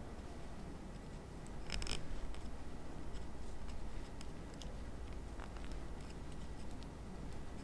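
Faint handling sounds of a twist tie being wound around thin lead wires and a small aluminum beam: light rustles and scattered small ticks, with one brief louder crinkle about two seconds in.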